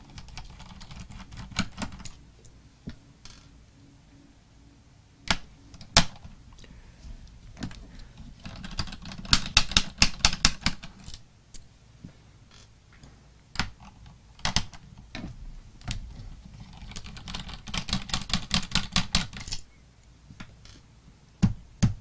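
Rapid clicking and tapping of a small screwdriver working screws out of a laptop's plastic bottom case, with single sharp clicks between two longer runs of quick clicks.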